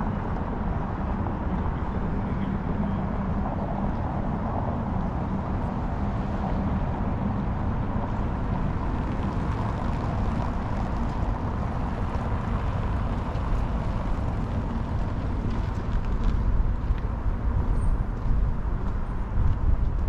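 City street traffic: a steady low rumble of passing road vehicles. It grows a little louder near the end, when a few light taps come through.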